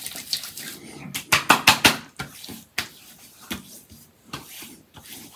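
Hands patting and slapping aftershave onto a freshly shaved face and neck: a quick run of sharp slaps about a second in, then a few lighter single pats.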